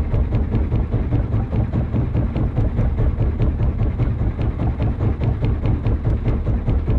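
Background music with a fast, steady drum beat over heavy bass.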